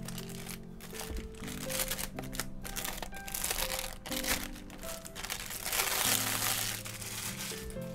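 Clear plastic bag crinkling and rustling as it is pulled off a cardboard camera box, with irregular crackles that are loudest about six seconds in. Light background music plays throughout.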